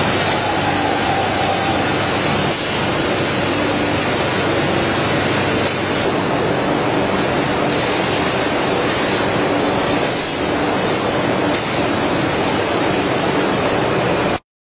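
Veneer splicer machine running: a steady, noisy mechanical sound with a faint hum under it and a few short clicks, cutting off abruptly near the end.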